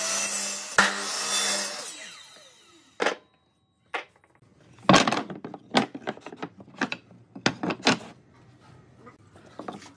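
Electric miter saw cutting through a pine board, its motor then winding down with a falling whine over the first few seconds. Then a series of sharp wooden knocks as cut boards are handled and set down, loudest between about five and eight seconds in.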